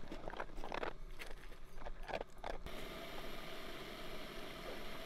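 A dog lapping from a steel bowl, a quick run of wet laps about two or three a second; about two and a half seconds in this gives way to the steady hiss of a Jetboil gas stove burning.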